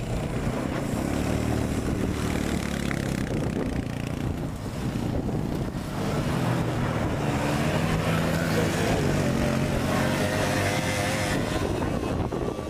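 Small ATV engines running as quads ride past in the sand, their pitch rising and falling with the throttle. One passes about a second in, and a louder group goes by from about six seconds in to near the end.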